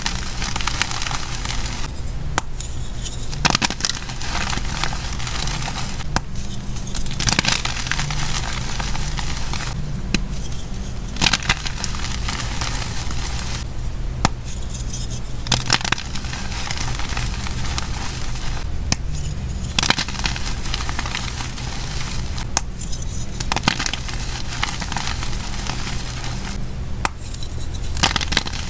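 Blocks of gym chalk crushed and crumbled in bare hands: crisp crunching and crackling in stretches of a few seconds, with short pauses between handfuls.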